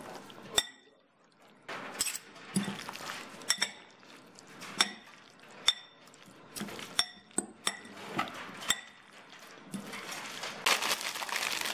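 A spoon clinking and scraping against a dish, about nine separate clinks, some with a short ring, while the chicken and bean filling is stirred and scraped together. Near the end, a rustling starts.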